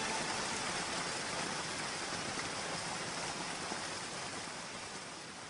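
A soft, steady hiss slowly fading out as the soundtrack ends.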